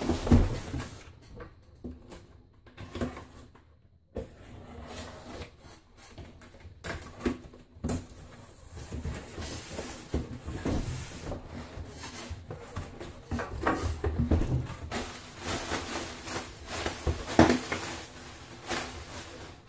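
A large cardboard shipping box being handled and opened on a wooden table: irregular scraping and rubbing of cardboard, knocks as the box is tipped and moved, and flaps being pulled open.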